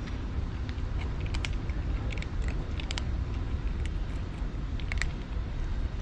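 A kitten eating, with scattered short clicking chewing sounds and a few brief squeaky noises over a steady low background rumble.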